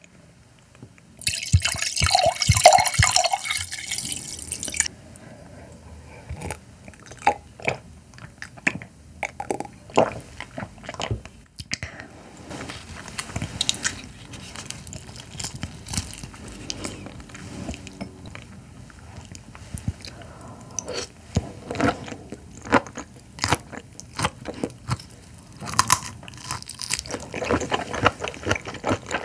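Wine poured from a bottle into a glass, a steady splashing hiss lasting about three and a half seconds. Then raw carabinero shrimp shells being cracked and pulled apart by hand, a run of small crackles and clicks.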